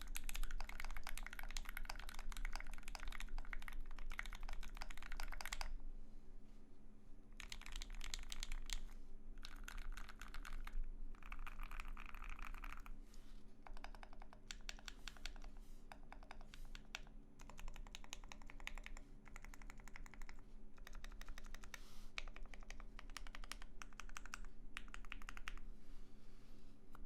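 Typing on an Austere aluminium-plate Alice-layout mechanical keyboard with filmed, lubed Alpaca linear switches and JTK tripleshot keycaps. The keystrokes come without a break for about the first six seconds, then in short runs with brief pauses between them.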